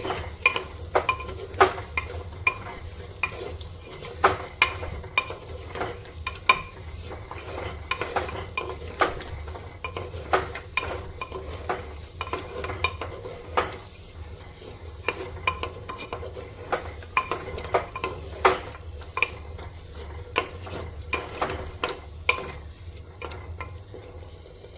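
A spoon stirring a thick vegetable curry in a clay pot, knocking and scraping against the pot about once or twice a second over a soft sizzle from the heat. A low steady hum sits underneath.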